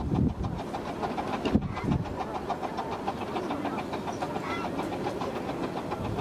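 Romney, Hythe and Dymchurch Railway 15-inch-gauge steam locomotive running with its train of coaches, heard as a steady rapid rhythm of several beats a second. A few low thuds come in the first two seconds.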